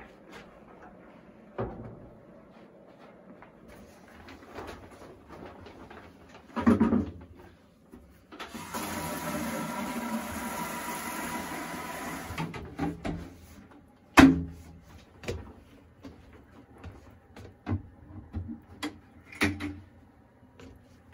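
Scattered knocks and clatters of objects being handled, with a heavy thump about seven seconds in and a sharper, louder one about fourteen seconds in. For about four seconds in the middle a steady rushing noise with a faint hum runs, then stops.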